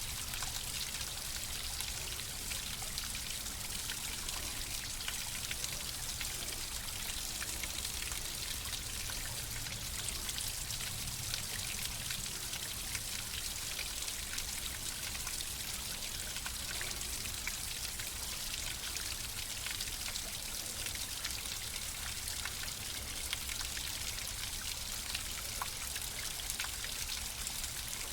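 Flowing water running steadily, with a dense patter of small drips and splashes over a low rumble.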